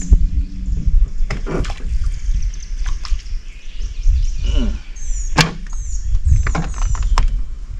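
Scattered knocks and clicks of fishing gear being handled in a small boat over a steady low rumble, with quick runs of short high chirps from birds. About four seconds in the cane-style crappie pole is lifted to swing in a small bream, with a brief falling tone at about that point.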